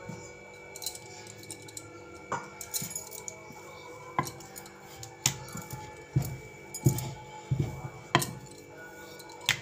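Wooden rolling pin rolling out luchi dough on a wooden board, with scattered sharp clicks and clinks, and from about five seconds in a run of low thuds as the pin is pressed and rolled back and forth.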